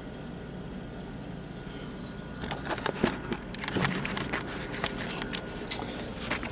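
Low steady room hum, then from about two and a half seconds in a run of irregular clicks and rustles: handling noise from a handheld camera as a person steps onto a digital bathroom scale.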